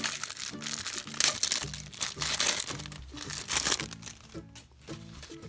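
Plastic-foil wrapper of a baseball-card pack crinkling as it is handled and crumpled, dying away about four seconds in, over background music with a steady beat.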